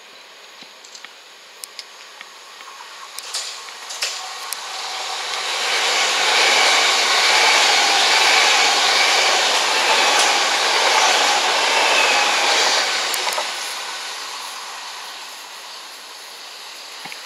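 Southern Class 377 electric multiple unit passing through the station without stopping. Wheel and rail noise builds over a few seconds, stays loud for about seven seconds as the carriages go by, then fades as the train draws away.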